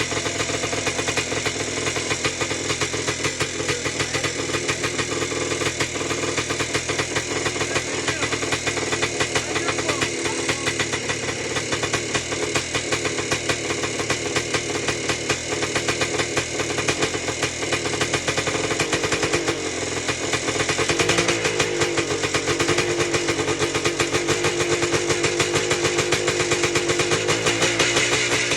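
1978 Yamaha YZ400's single-cylinder two-stroke engine running just after its first start in years, a fast, even crackle of firing strokes. About 20 seconds in the revs rise and stay up: it wants to rev up on its own, which the owner puts down to a dirty carburettor.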